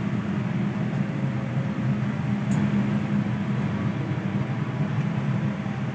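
Steady low rumble inside a Boeing 787-9 passenger cabin, with one faint click about two and a half seconds in.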